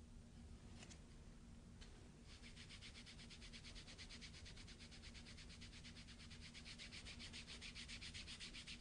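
Faint rubbing of a hand over kinesiology tape stuck on the skin, warming the adhesive so it bonds. It starts about two seconds in as quick, even back-and-forth swishes, after two faint ticks.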